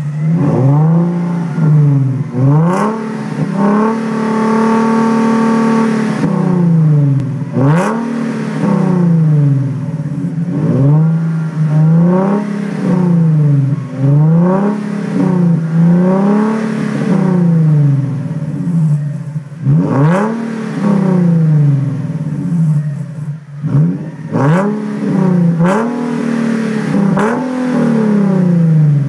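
Nissan 370Z's 3.7-litre V6 revved repeatedly at standstill through a stainless steel aftermarket exhaust: a string of quick throttle blips that rise and fall, with one longer held rev about four seconds in. A few sharp cracks come between the blips.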